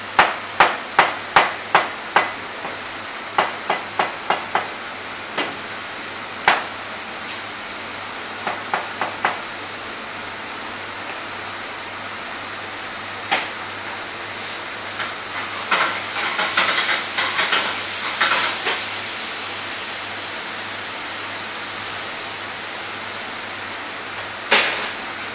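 Chef's knife chopping vegetables on a plastic cutting board: quick runs of sharp knife strikes through the first ten seconds, then a burst of clattering about two-thirds of the way through, over a steady low hum.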